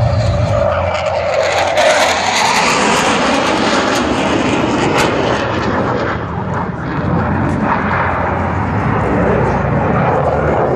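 Military jet flying past low over the airfield, its engines making a loud, steady noise that dips briefly a little after the middle.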